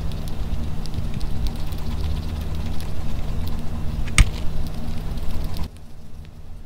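Pet rat chewing food held in its paws right at the microphone: close, crackly munching full of small clicks, with one sharper click about four seconds in. It gets clearly quieter near the end.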